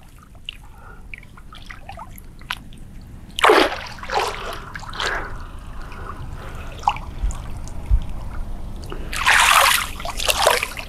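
Pond water splashing and trickling as a person wades and gropes with her hands in the shallows along the bank. There are a few short splashes about three and a half to five seconds in, and a longer, louder splash near the end.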